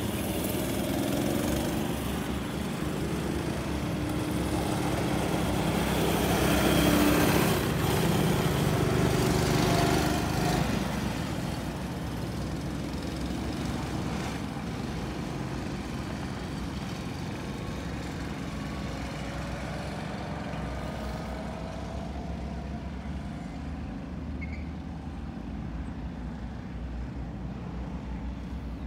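Several go-kart engines running as karts lap the track. The sound swells to its loudest about a third of the way in as a kart passes close, then eases to a more distant drone with a rising pitch as a kart accelerates.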